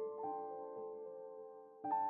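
Background piano music: single notes and chords struck and left to ring, a new one about every half second.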